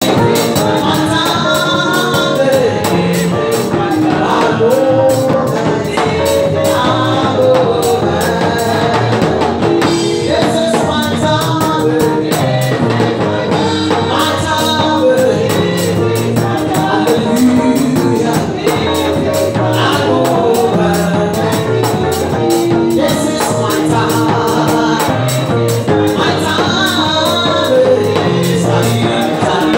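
Upbeat gospel praise music: voices singing over a fast, steady percussion beat with a tambourine-like shake.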